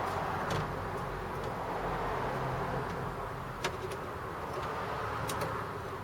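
A few sharp clicks and taps of hand work on a car door's internal lock and latch mechanism, over a steady background hiss; two of the clicks come close together near the end.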